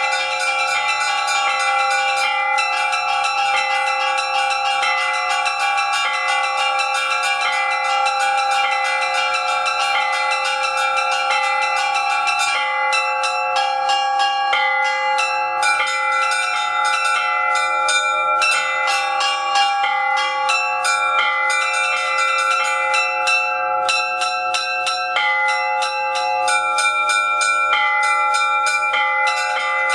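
Orthodox church bells rung by hand from ropes: fast chiming of small bells over the steady ringing of larger bells. About halfway through, the small-bell rhythm changes and becomes more broken, with short gaps between figures.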